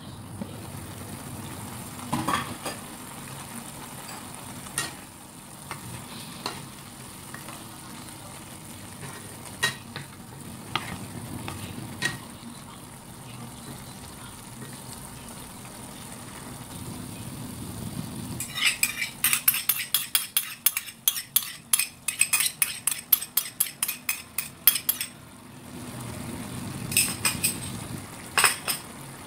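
Broccoli and tuna sizzling in a non-stick pan while a wooden spatula stirs, with scattered knocks against the pan. From about 18 seconds in, a quick run of taps and scrapes lasting several seconds, the loudest part.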